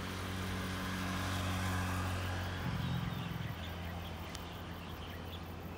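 Steady low engine hum over a faint outdoor rush, with a shift in its pitch pattern a little under three seconds in.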